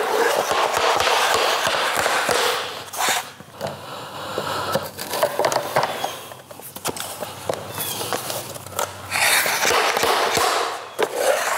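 Repeated knocking and scraping as a tapping block is struck to drive a vinyl plank's click-lock edge into the joint of the next plank. The knocking is densest in the first few seconds and again near the end.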